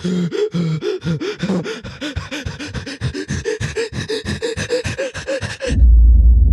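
A person wheezing with laughter in rapid, heavy gasping breaths, about five a second, each with a short squeaky rise and fall in pitch. Near the end the wheezing stops and a much louder low rumble cuts in.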